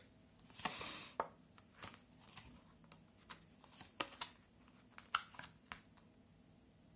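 Fortune-telling cards being handled: a short sliding rustle about half a second in, then a series of light clicks and taps as cards are drawn and laid down.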